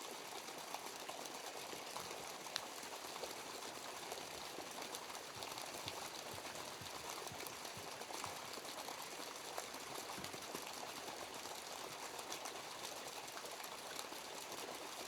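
Small stream running steadily, with a few faint clicks.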